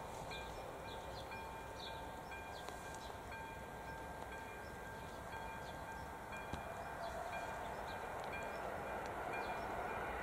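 ZV-02 electronic level-crossing bell of an AŽD 97 crossing warning system ringing in a steady repeating pattern, warning of an approaching train. A low rushing noise grows slightly louder near the end.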